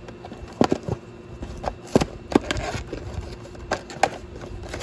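A cardboard trading-card box being opened by hand: an irregular series of sharp taps and clicks with light rustling between them.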